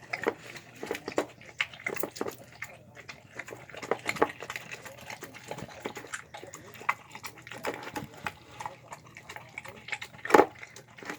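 Dog eating wet food, chicken with egg and rice: irregular wet chewing and smacking clicks, with one louder smack about ten seconds in.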